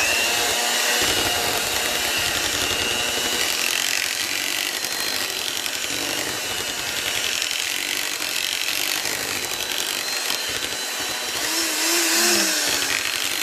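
Electric mixer running steadily at speed, beating an egg into cheesecake batter.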